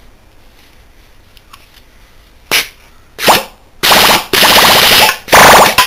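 Small Bristol scroll compressor run as an air motor on compressed air fed into its discharge, spinning very fast. From about two and a half seconds in it goes in bursts of loud hissing air with a fast buzzing rattle: two short bursts, then four longer ones of up to about a second.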